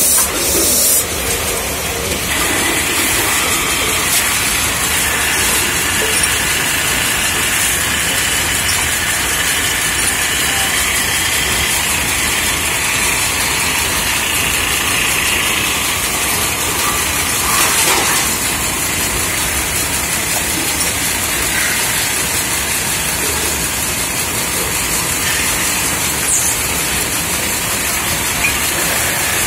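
Belt-driven metal-spinning lathes running steadily as aluminium pots are spun and shaped, with the tools scraping on the spinning metal. This makes a continuous loud mechanical noise with a hissing edge and an occasional brief knock.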